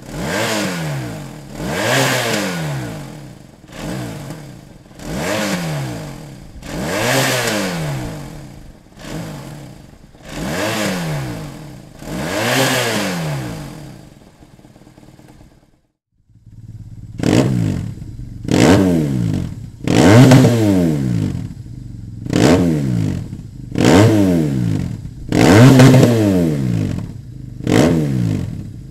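2001 BMW R1150 RT's boxer twin blipped from idle again and again, each rev rising and falling back. First it runs through the stock exhaust, measured at 93 dB. After a short pause about fifteen seconds in, it runs through a louder Dominator ST aftermarket silencer, measured at 104 dB.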